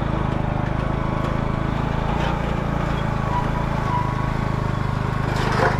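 Motorcycle engine of a Philippine tricycle (motorcycle with sidecar) running steadily while riding.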